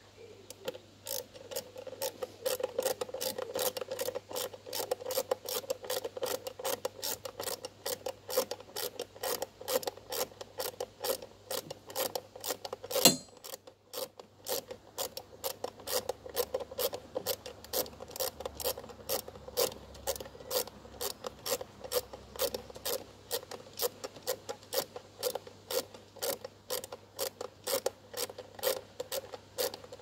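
Hand socket ratchet clicking in an even, rapid run as a bolt is turned, with one sharper clack about halfway through.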